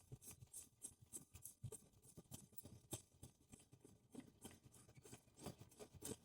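Faint, irregular small clicks and light scraping of an Allen key turning the threaded adjustment rod of a homemade router lift, raising or lowering the router.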